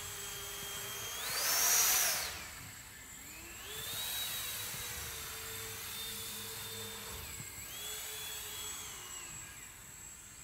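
Electric ducted fan of a scratch-built RC jet whining in flight, its pitch rising and falling with the throttle. It is loudest about two seconds in, and the whine drops and fades near the end.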